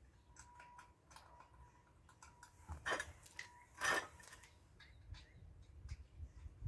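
Light metallic clicks and clinks of lug nuts and wheel hardware being handled while a car wheel is fitted onto the hub studs, with two louder clanks about three and four seconds in.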